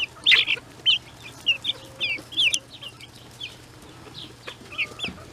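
Young chickens peeping: short, high chirps coming several a second at times, thinning out for a moment in the middle.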